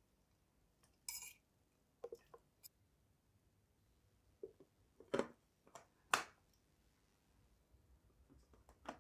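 Plastic clicks and knocks of a Mitochiba CH 100 food chopper's lid and motor head being fitted onto its small bowl: a handful of separate knocks, the loudest about five and six seconds in, with a brief rustle about a second in.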